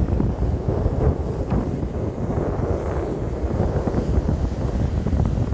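Wind buffeting the microphone, a loud rumbling gusty noise that rises and falls.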